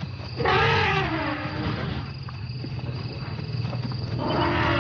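African elephants trumpeting in agitation, two loud harsh calls: the first falls in pitch over about a second and a half, the second comes near the end. A steady low sound runs underneath.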